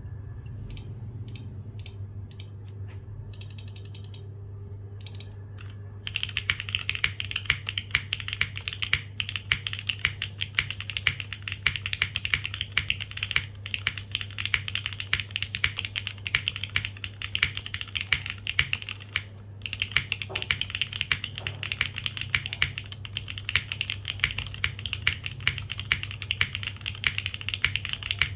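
Custom mechanical keyboard with Cherry MX Black linear switches in an aluminium plate and GMK keycaps being typed on: a few separate keystrokes for the first several seconds, then fast continuous typing, with a brief pause about two-thirds of the way through.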